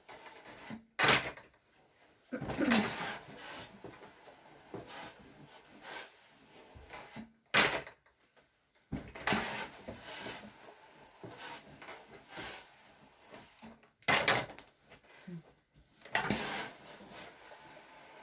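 Clothes iron being worked over laundry on a table: a sharp knock followed by a short hiss, three times, about every six to seven seconds.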